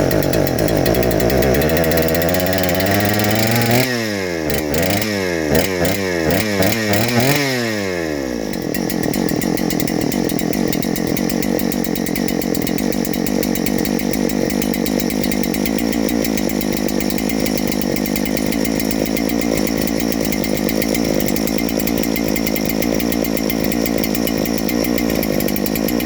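Neo-Tec NH8120, a clone of the Husqvarna 3120XP, running on its first start: a large two-stroke chainsaw engine. Its speed drops at first, then it is revved up and down about five times in quick succession, then held steady at high speed.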